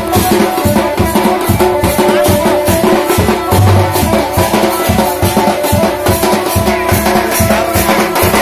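Loud band baja procession music: fast, driving drumming with rattling percussion under a held melody line, and a heavy low bass boom about halfway through.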